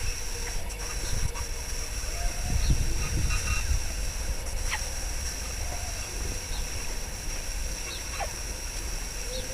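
Outdoor ambience: wind rumbling on the microphone over a steady high hiss, with a few short, high, falling calls from animals nearby.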